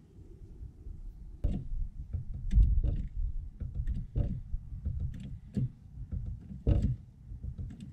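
Irregular clicks and light knocks over a low rumble, from hand tools and handling while someone works under a small Daihatsu Hijet truck, with a few louder knocks along the way.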